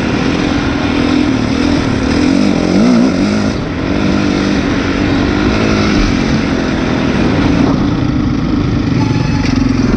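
Honda CRF four-stroke motocross bike engine running under throttle, heard onboard from the rider's helmet camera. The revs rise and fall around three seconds in, with a brief dip in level just after.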